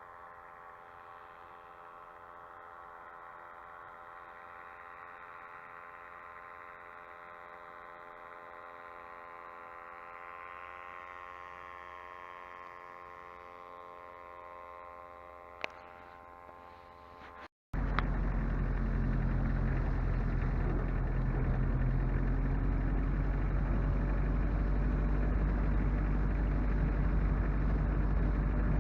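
A vehicle engine running steadily with an even, many-toned hum. After a sudden cut, a much louder heavy low rumble with wind noise on the microphone, typical of riding in a moving vehicle.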